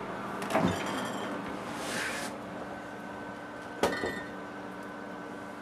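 Refrigerator door opened, with a knock about half a second in and a short rustle around two seconds, then one sharp clink of glass beer bottles near four seconds. A steady hum comes in partway through.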